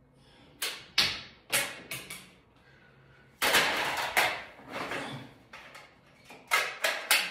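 Sharp plastic clacks from toy guns being handled and fired, several in the first two seconds and three quick ones near the end, with a longer clattering rattle in the middle as plastic toy guns are rummaged in a bag.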